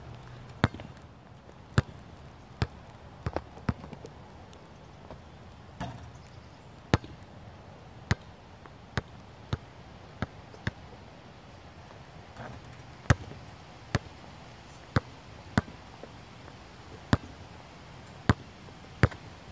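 Basketball bouncing: sharp single bounces about once a second, unevenly spaced, with a few quicker pairs.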